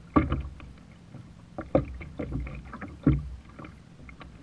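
Choppy sea water slapping against a plastic fishing kayak's hull: three sharp slaps about a second and a half apart, over a low rumble of wind on the microphone.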